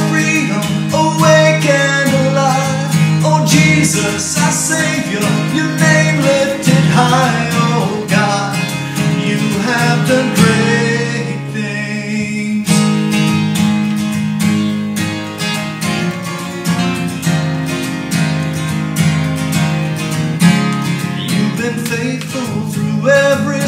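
A man singing a worship song, accompanied by his own strummed acoustic guitar.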